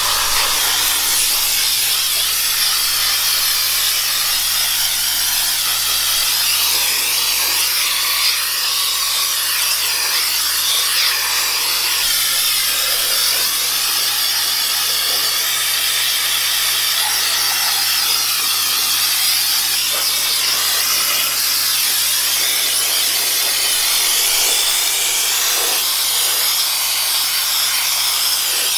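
Air Shine Pro compressed-air wash wand blasting a steady hissing spray of soapy water onto a mini bike's engine and chain.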